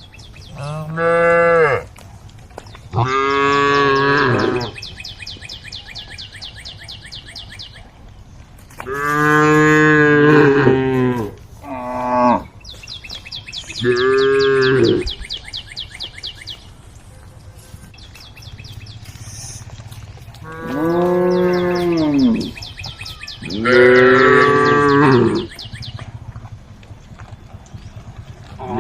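Cattle mooing: about seven long calls from a herd, each one to two seconds long, rising and then falling in pitch, a few seconds apart. A fainter, fast, high-pitched ticking buzz runs underneath.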